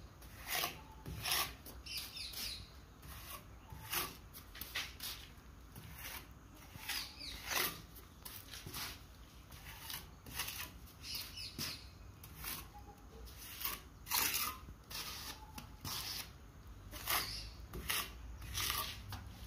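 Steel plastering trowel scraping and spreading wet cement mortar in many short, irregular strokes, filling gaps along the edge of a plastered wall.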